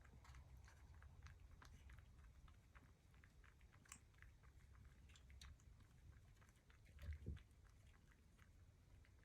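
Faint, quick, irregular mouth clicks of a cat chewing, with a soft low thump about seven seconds in.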